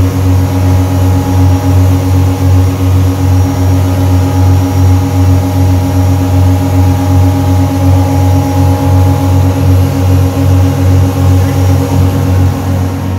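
Motorboat engine running steadily at cruising speed, a loud low drone with a regular pulsing beat, over the rush of wind and water as the boat planes.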